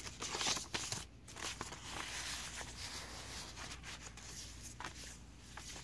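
Old paper pages rustling as they are handled and turned: a few short crisp rustles at first, then a softer continuous rustle of paper sliding under the hand.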